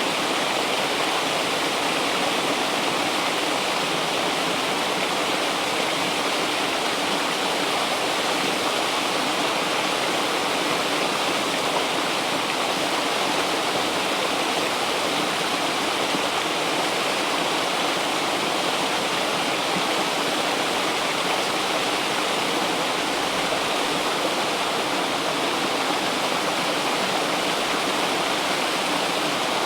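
River water rushing and flowing over rocks, a steady, unbroken rush.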